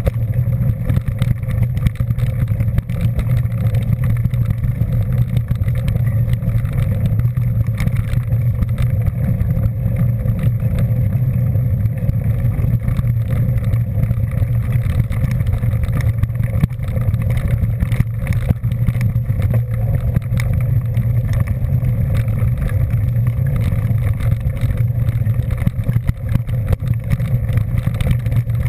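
Steady drone of a moving vehicle: engine and road or wind noise with a strong low hum, holding an even pace without revving or stopping.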